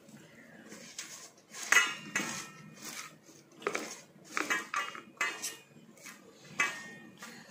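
Hands scooping and squeezing syrup-coated puffed rice in a nonstick kadai: the grains rustle and crunch, with about ten irregular knocks and clinks against the pan, some ringing briefly.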